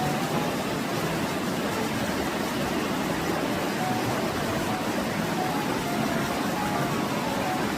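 Steady rushing of a stream, an even unbroken wash of water noise.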